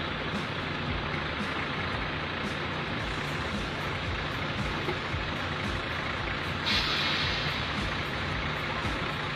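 Heavy dump truck's diesel engine running steadily, with a sudden hiss of air about two-thirds of the way in, like an air-brake release.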